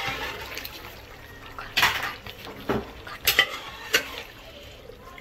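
Metal ladle scooping boiled chickpeas out of a pressure cooker and tipping them into a steel kadai, with about four sharp clinks of metal knocking on metal pots in the middle of the stretch.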